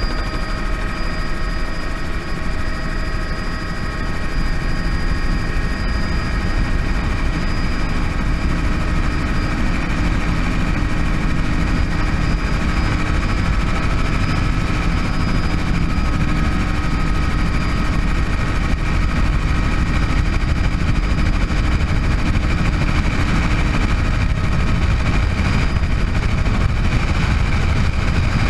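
Bell 206 JetRanger helicopter running steadily, its single turbine engine and rotor giving a dense, deep drone with a steady high whine over it.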